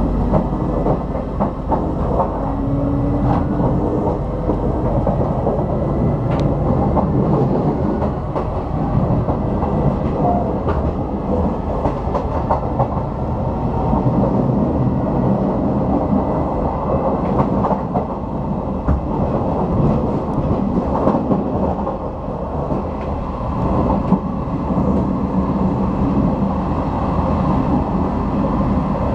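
Train running along the track, heard from on board: a steady rumble with scattered clicks of the wheels over rail joints.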